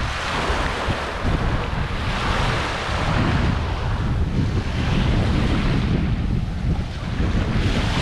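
Small waves washing in and out at the edge of a sandy beach, the wash swelling and fading every few seconds. Wind buffets the microphone with a steady low rumble underneath.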